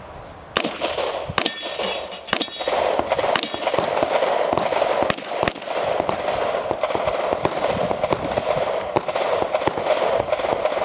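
Revolver shots fired in a quick string on an IPSC stage, some followed by the brief ringing of hit steel targets, over a steady rushing noise.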